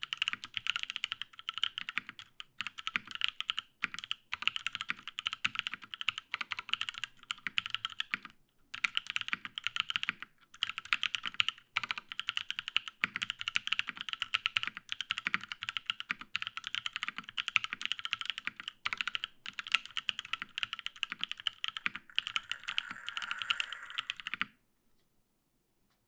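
Fast, continuous typing on a Matrix 8XV2.2 mechanical keyboard with lubed Paco switches, an aluminium plate and GMK keycaps, sitting on a bare desk with no deskmat. There are a few short pauses, and the typing stops suddenly near the end, leaving silence.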